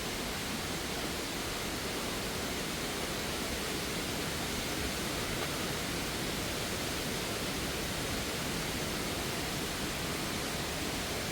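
Steady rushing of water from a waterfall, an even hiss that holds without change.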